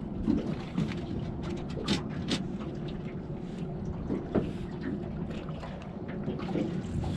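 Wind on the microphone and water slapping against the hull of an anchored fishing boat, a steady rumble broken by a few light knocks and clicks.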